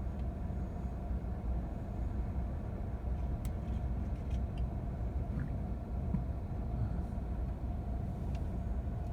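Steady low rumble of wind buffeting the microphone at the seashore, over the wash of shallow sea water, with a few faint ticks.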